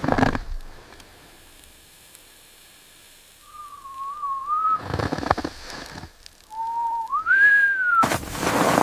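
Whistling: two short wavering whistled phrases, the second sliding up in pitch and easing back down, between short bursts of crackling noise.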